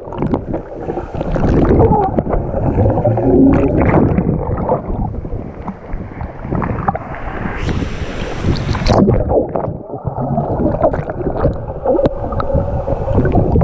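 Low, uneven rumble of a waterfall's rushing water mixed with wind buffeting the microphone, with a brief brighter hiss about eight seconds in.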